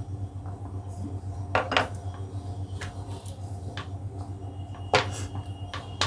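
Wooden rolling pin rolling out dough on a wooden board, with a few scattered knocks and clicks, over a steady low hum.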